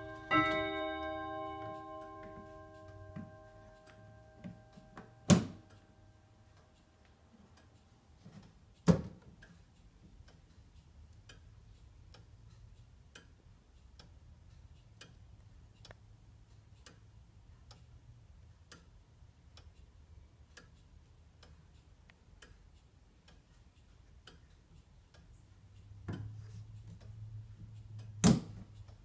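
Tempus Fugit Polaris grandfather clock: the last hour-strike note rings out about half a second in and slowly fades, then the movement ticks steadily. A few sharp knocks cut in, at about 5 and 9 seconds and near the end.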